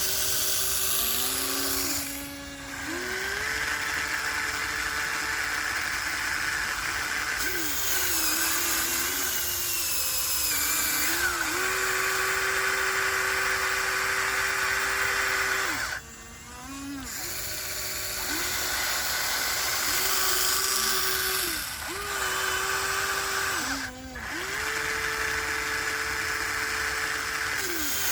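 Electric motors of a Huina 1494 radio-controlled model excavator whining as it digs. The pitch steps up and down as motions start and stop, with brief drops about two seconds in, around sixteen seconds and near twenty-four seconds.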